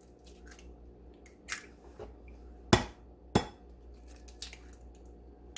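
An egg knocked sharply twice, just over half a second apart, against the rim of a ceramic ramekin to crack its shell, with fainter clicks and crackles of shell before and after as it is pulled open by hand.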